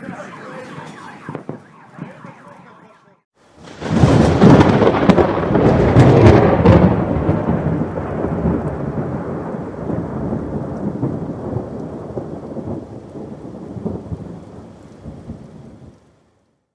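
Close lightning strike: a sudden loud thunderclap about four seconds in, rolling into a long rumble that slowly fades over some ten seconds, with rain hissing throughout.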